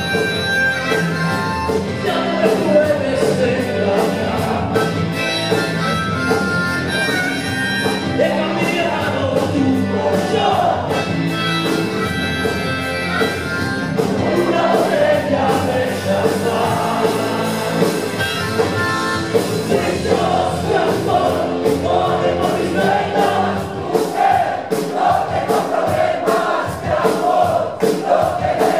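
Live rock band playing with voices singing; about twenty seconds in, the drums settle into a regular, distinct beat under a held, wavering vocal line.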